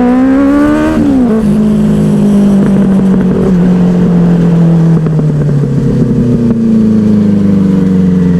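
Benelli 600i's inline-four engine, fitted with a loud aftermarket silencer, accelerating with rising pitch, shifting up about a second in, then pulling at a fairly steady pitch that slowly eases off.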